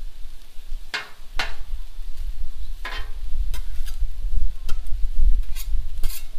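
Metal spatulas scraping across the steel top of a Blackstone griddle, pushing and piling cooked ground-beef giniling, in about seven short, irregular scrapes.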